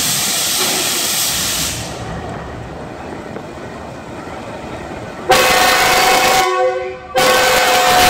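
Pakistan Railways GEU-20 diesel locomotive's air horn sounding its departure signal: a loud chord of several tones starts about five seconds in, breaks off for half a second, then sounds again. It is preceded by a loud hiss of air in the first two seconds.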